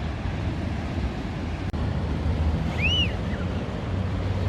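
Steady beach ambience of surf and wind rumbling on the microphone, with one short high chirp that rises and falls about three seconds in.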